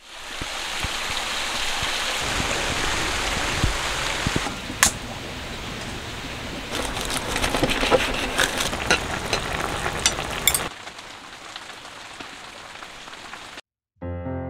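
A steady hiss, then a run of sharp clicks and taps over the hiss from about six and a half to ten and a half seconds in, after which it drops to a softer hiss and cuts off shortly before the end.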